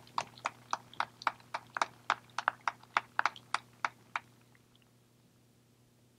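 Footsteps on the stage: sharp knocks about four a second that stop about four seconds in.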